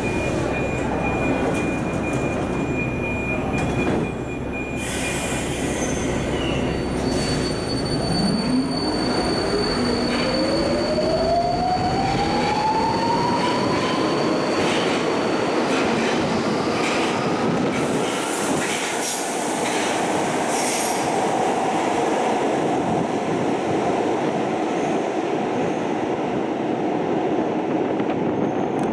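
Budapest Metro Line 4 Alstom Metropolis train pulling out of the station. A steady high tone sounds for the first five seconds. Then the electric traction drive whines, rising steadily in pitch as the train accelerates away, over the rumble of the wheels.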